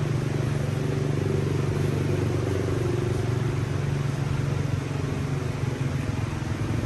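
An engine running steadily at an even speed, a low pulsing hum that does not rise or fall.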